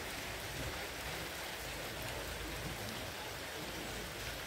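Steady rain, an even hiss that keeps the same level throughout.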